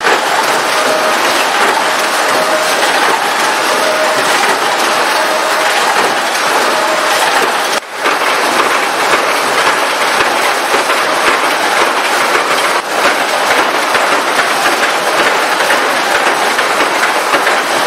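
Rows of flywheel-driven mechanical punch presses running, a loud, continuous metallic clatter of rapid stamping strokes as the presses form steel drawer-slide rails, dipping briefly about eight seconds in.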